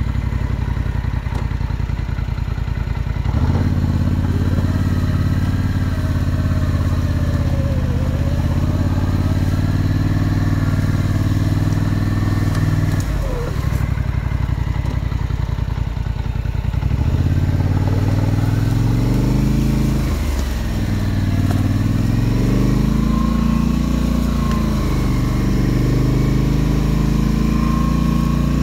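Polaris Sportsman 850 ATV's twin-cylinder engine running, its pitch rising and falling several times as the throttle is opened and closed.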